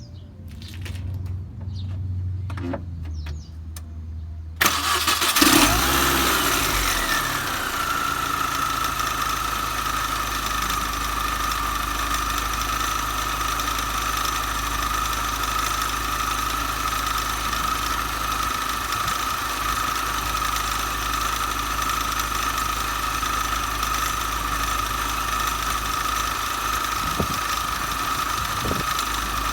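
MINI Cooper S R53's supercharged 1.6-litre four-cylinder being started about four to five seconds in, catching at once and then idling steadily. A high whine falls in pitch after the start and settles into a steady tone over the idle. The engine has just had an oil change with Liqui Moly additive and is being checked for an abnormal noise.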